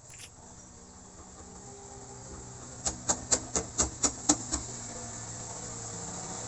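A quick run of about eight sharp taps, roughly five a second, lasting under two seconds, over a steady low hum.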